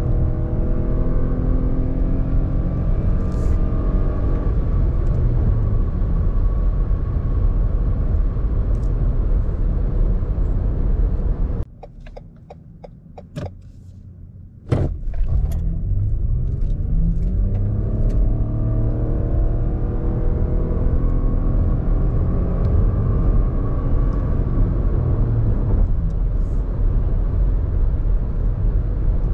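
Toyota Highlander Hybrid's 3.5-litre V6 and hybrid drive heard from inside the cabin under hard acceleration, the engine note rising in pitch over a heavy low rumble of engine and road. Near the middle the sound drops away for about three seconds with a few clicks, then another hard acceleration starts with the engine note climbing again.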